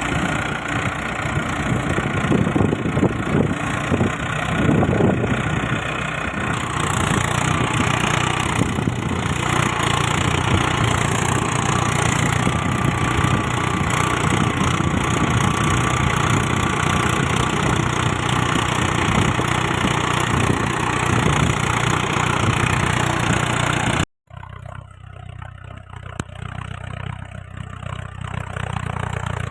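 Tractor engine running steadily. About three-quarters of the way through it cuts out abruptly for a moment, then carries on quieter.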